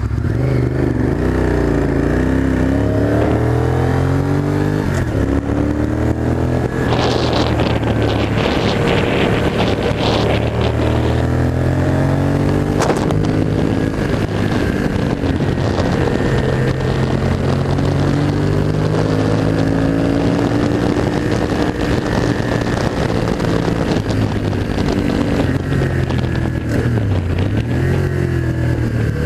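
Honda VTR1000 Firestorm's 90-degree V-twin accelerating hard away from the start line, its pitch climbing through each gear and dropping back at every upshift. Wind rushes over the bike-mounted microphone for a few seconds at speed. Near the end the revs fall and rise again as the rider changes down for a bend.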